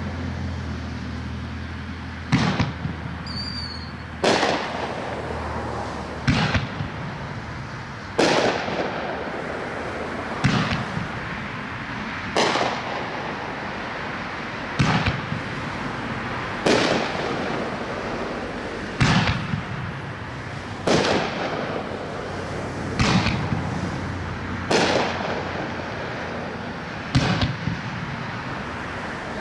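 500-gram consumer firework repeater (DF1 Willow Beach) firing brocade willow shells: a sharp report about every two seconds, each trailing off in a fading crackling hiss.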